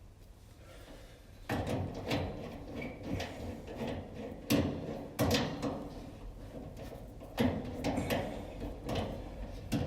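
Irregular knocks and scraping clatter of a hand tool working on metal as the third 220-volt power cord wire is undone from a clothes dryer's terminal block. It starts about a second and a half in.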